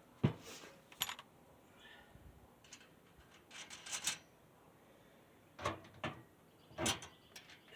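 Metal clicks and clinks of bolts and nuts being fitted through a wheelbarrow's leg pieces and front braces, a string of short separate knocks in small clusters.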